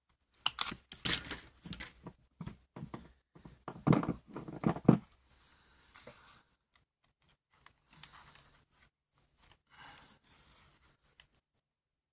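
Scrunched brown packing paper rustling and crinkling as it is handled, in short scattered crackles, loudest about a second in and again around four to five seconds in.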